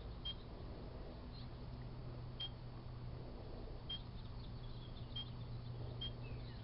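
A 1984 Kenmore microwave oven running with a low, steady hum while correction tape heats inside. About five short, sharp clicks or snaps come a second or so apart over the hum.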